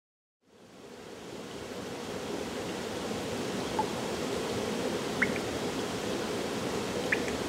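Shallow water flowing over rocks: a steady rushing that fades up over the first second or two, with a few faint higher plinks.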